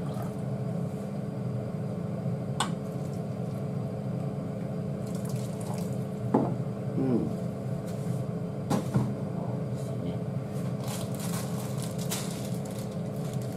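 Water poured from an electric kettle into a saucepan of curry, a steady pouring over a constant low hum, with a few clicks. Near the end a plastic packet rustles.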